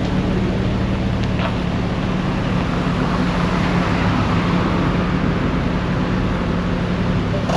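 A motor vehicle's engine running with a steady low hum, with a broad swell of traffic noise around the middle.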